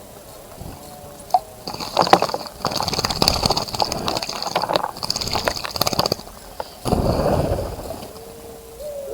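A bird splashing and flicking water in a bird bath for about four seconds, then a second, shorter splash. Near the end a low cooing call begins, from a dove.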